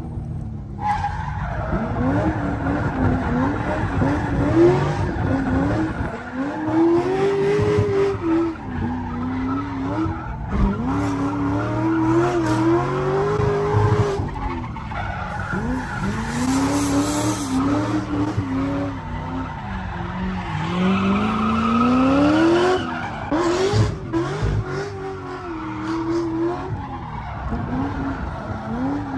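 A drift car's engine revving up and down hard over and over, with the tyres squealing and skidding as it slides through the course. The sound breaks off briefly a few times.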